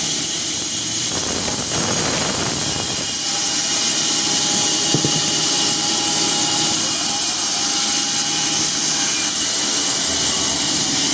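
Band sawmill running, a steady, even hiss of machine noise.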